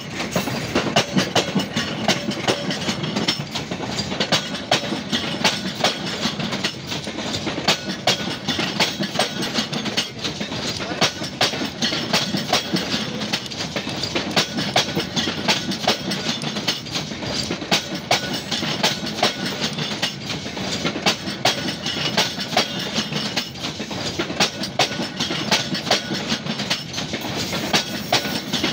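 Train wheels rolling over a bolted fishplate rail joint: a continuous rolling rumble broken by a steady run of sharp clacks as wheel after wheel crosses the joint gap.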